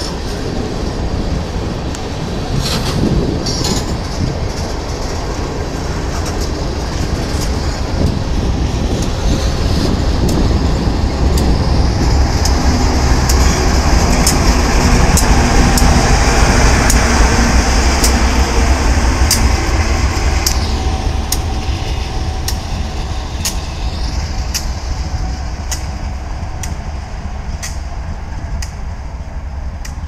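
A train rolling past close by: a steady deep rumble with regular clicks of wheels over rail joints. It swells to its loudest about halfway through, as the locomotive goes by, then eases off.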